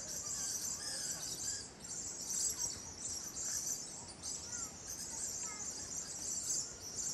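Steady high-pitched insect chorus, with a few faint, scattered bird chirps.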